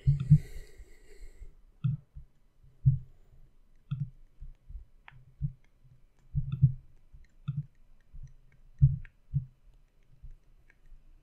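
Soft, irregular low thumps with faint clicks, coming one or two at a time every second or so.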